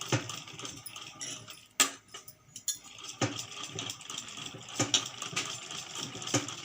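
Sewing machine stitching a seam, a steady rattling clatter broken by a few sharp knocks, pausing briefly about two seconds in.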